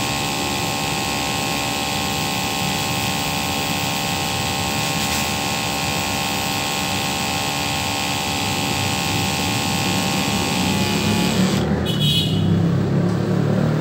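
Small electric pump running steadily, a whine of several steady tones over a hiss of spray, as the plants are sprayed. It cuts out about eleven and a half seconds in, leaving a rougher low rumbling.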